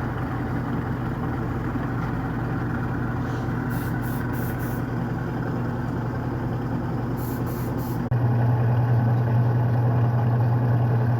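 IEM 8 kg automatic washing machine in its spin cycle, the motor and spinning drum giving a steady hum. About eight seconds in it gets abruptly louder, the hum growing stronger.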